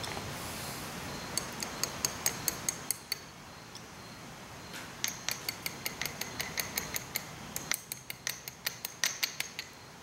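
Light metallic clicking and ticking as small steel parts are handled and fitted onto a John Deere 4430 transmission shaft: a quick run of clicks about a second in, then a longer, busier run from about five seconds until near the end.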